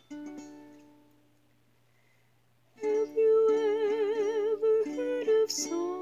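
Opening of a song: a single strummed chord on a plucked string instrument rings and fades, then about three seconds in a singing voice comes in with wide vibrato over strummed chords.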